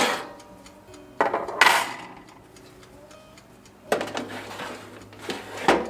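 A metal baking tray and the wire rack of an electric countertop oven clattering and scraping together as the tray is slid into the oven. Three rounds of clanking come about a second in, near four seconds and near the end.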